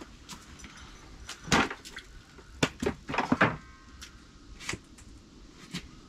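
A handful of short, sharp knocks and clatters, the loudest about a second and a half in and a quick cluster around three seconds in, with fainter ones later.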